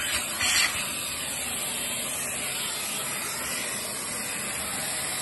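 Steam cleaner nozzle hissing out a steady jet of steam, with a brief louder spurt about half a second in.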